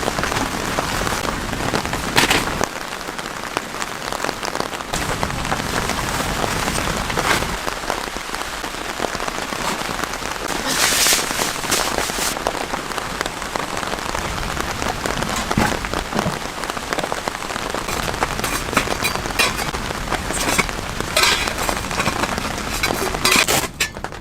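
Steady rain, many drops pattering on a surface.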